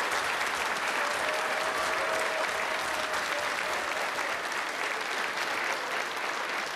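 Live audience applauding, steady clapping from a large crowd.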